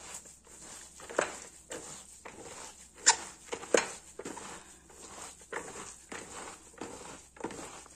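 A hand squeezing and kneading chopped onion, parsley and tomato paste in a plastic bowl: irregular wet squishes and rustles, with two louder ones about three and four seconds in.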